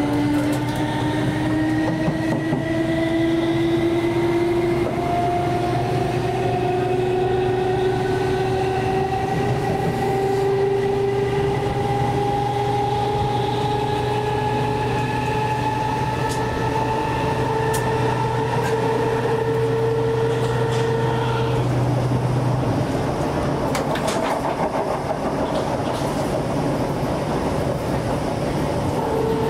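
Class 455 electric multiple unit heard from inside the carriage while accelerating: the traction motors whine, climbing steadily in pitch over the rumble of the wheels on the rails. About three-quarters through, power is shut off; the whine and hum fade and the train runs on, with a few clicks from the wheels over rail joints.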